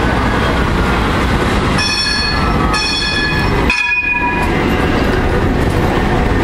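Tram arriving at the platform, a steady rumble of its wheels and running gear as it rolls past and slows. From about two seconds in, a high shrill tone sounds in two or three stretches for a couple of seconds.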